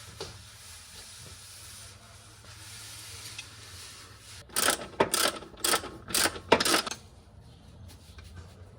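Hand work on metal car parts: after a faint hiss, about five quick, loud rasping strokes in a row midway through, like a tool scraping or working against metal.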